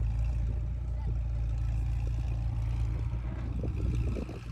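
McLaren supercar's twin-turbo V8 running low and steady as the car rolls slowly away.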